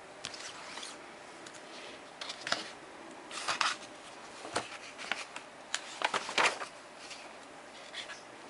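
Paper rustling and crisp page flips as a large curriculum teacher's edition is handled and its pages are turned. The flips come in short, irregular bursts, the loudest a few seconds in.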